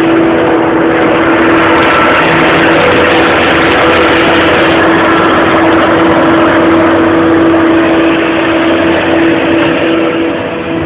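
Claas Jaguar 870 self-propelled forage harvester chopping maize: the engine and chopping drum give a loud, steady drone with a constant whine held throughout. The level dips slightly near the end.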